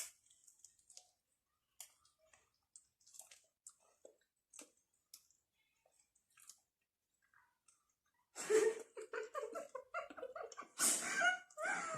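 Faint chewing and mouth clicks of someone eating saucy chicken wings. About eight seconds in comes a louder stretch of pitched, wordless voice-like sounds.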